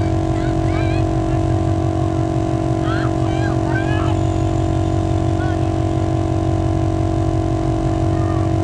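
12-volt onboard 150 psi air compressor running steadily under load, filling a flat 35-inch off-road tire: a constant hum over a rapid low pulsing.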